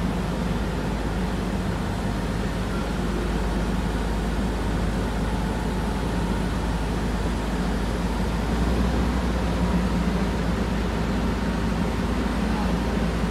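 Boom truck crane's diesel engine running steadily, driving the crane's hydraulics as it swings a suspended load; the drone grows a little louder about nine seconds in.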